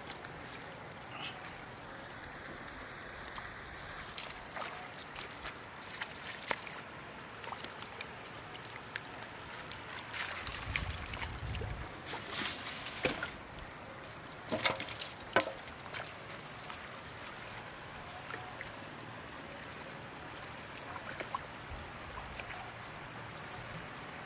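Shallow floodwater sloshing and trickling, with a cluster of louder splashes and knocks about halfway through.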